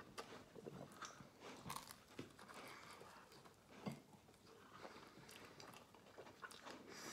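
A person chewing and biting into a chicken, mushroom and cheese calzone, with faint mouth sounds and one louder bite about four seconds in.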